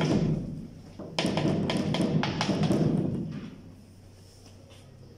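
A sharp tap of chalk on a blackboard, then, about a second in, a run of knocks and thuds lasting about two seconds.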